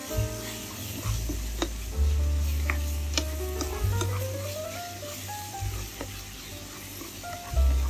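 A spatula stirs and scrapes crumbled tofu and onions in a sizzling nonstick pan, with a few short sharp taps, over background music with a low bass line.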